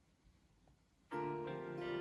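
Near silence, then background music starts suddenly about a second in, with sustained instrument notes.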